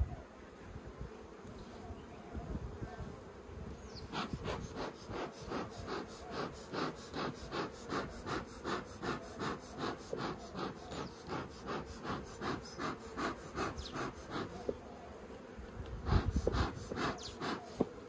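Bellows bee smoker being pumped in quick, even puffs, about three a second, starting about four seconds in, pausing briefly and resuming near the end. Under it, the steady hum of honeybees from the open hive.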